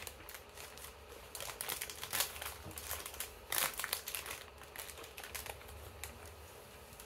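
Plastic film wrapper of a 7-Eleven sandwich crinkling as it is pulled open by hand, in irregular crackles, loudest about two seconds in and again a second and a half later.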